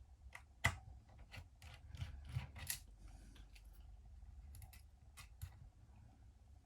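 Light, scattered clicks and faint scraping of a small screwdriver and tiny screws being worked out of and handled on a tablet's back panel. The clicks are quick and irregular at first, then thin out to a few near the end.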